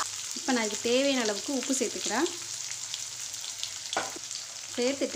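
Sliced onions sizzling in hot oil in a kadai, a steady frying hiss. A person's voice is heard briefly from about half a second in, and again near the end.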